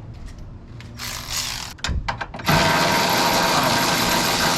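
Power ratchet spinning a bolt or nut off: a short run about a second in, a couple of quick blips, then a steady whirring run from about two and a half seconds on.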